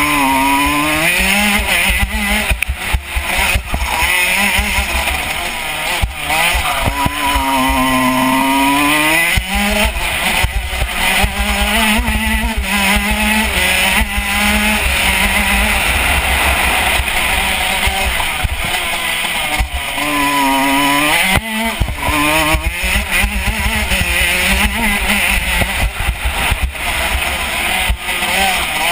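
KZ125 shifter kart's 125 cc two-stroke engine heard onboard at racing speed, revs climbing and falling back again and again through the lap, with a sharp drop in revs about 21 seconds in.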